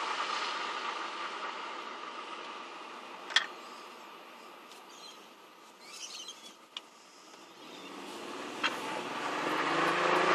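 BMW 135i engine running. Its sound fades over the first half and builds again near the end with a rising pitch, and a few sharp clicks are heard along the way.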